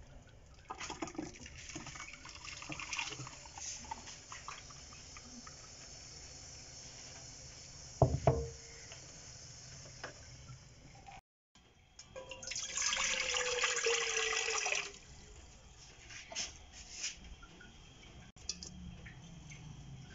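Orange juice and pulp being strained through a metal mesh sieve into a glass jug, with soft liquid splashing and dripping. There is a sharp knock about eight seconds in, and a louder rush of pouring liquid lasting a couple of seconds a little after halfway.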